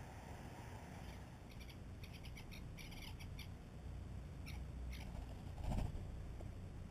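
Birds chirping in quick clicking bursts, then a louder flutter of wings about six seconds in as a European starling drops onto the mealworm feeder.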